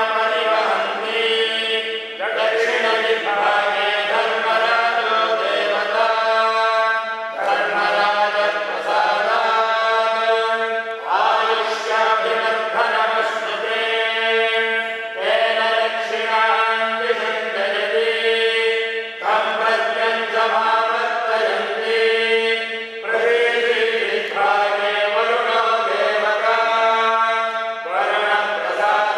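Temple priests chanting Sanskrit mantras, in phrases of about four seconds each with short breaks between.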